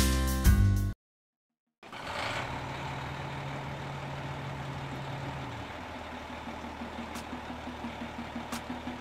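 Music cuts off about a second in. After a short silence comes a car engine idling, a steady rumble that turns into an even, quickening pulse after about six seconds.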